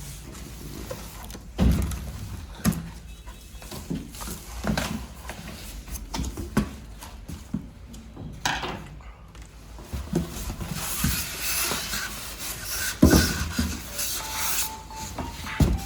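Irregular knocks, thumps and rubbing from objects being handled. From about two-thirds of the way in, a rustling hiss joins them, and a faint steady tone starts near the end.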